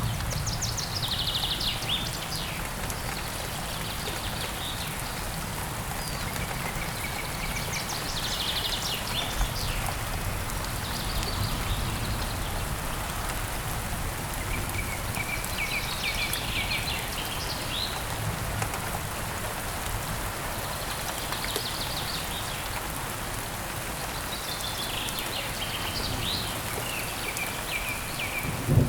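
Steady rain falling, with a bird's high chirping call sequences returning every few seconds over it.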